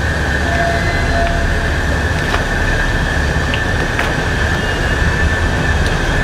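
Steady drone of ship machinery: a low rumble with a constant high whine above it, and a couple of faint ticks.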